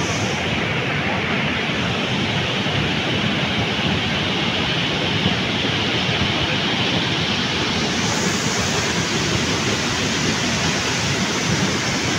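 Swat River in flood, a fast, muddy torrent of water rushing without a break in a steady wash of noise.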